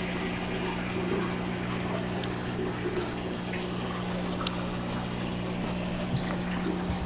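Aquarium water pump running with a steady hum, with water trickling and gurgling in the tank. Two faint ticks come in about two seconds and four and a half seconds in.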